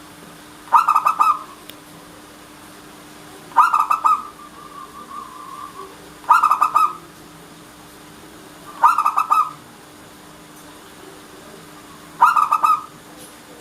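Zebra dove (perkutut) singing its rhythmic song: five short phrases of quick, clipped coos, one every two and a half to three seconds.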